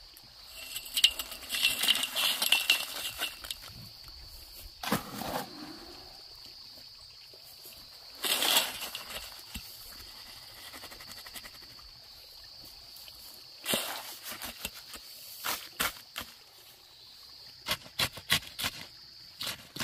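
Wet concrete mortar scraped up and dropped around the base of a steel fence post, two heavy scoops about 5 and 8 seconds in. From about 14 seconds in come a run of sharp taps as the mortar is tamped down with a bamboo stick.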